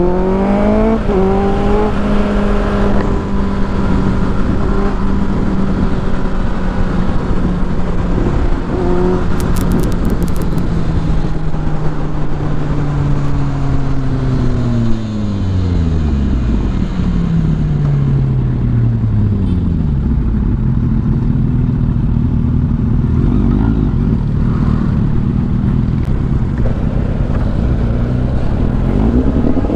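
Kawasaki Z800 inline-four engine heard from the rider's seat, rising in pitch as it accelerates in the first couple of seconds, then holding a steady cruise. Its pitch falls as the bike slows about halfway through, stays low for a while, and rises again near the end as it pulls away, all over a steady rush of wind.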